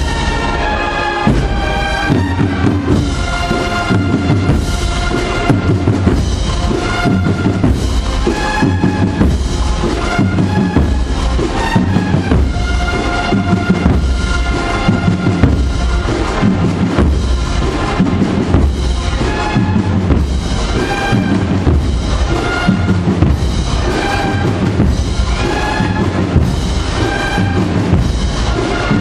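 Processional band of brass and drums playing a Holy Week march: held brass notes over a steady, regular drum beat with a bass drum.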